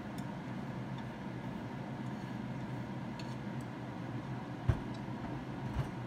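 Chopsticks scraping and tapping stir-fried vegetables out of a frying pan into a steel pot, with a few light clicks, then two dull knocks near the end as the pan is set down. A steady hum runs underneath.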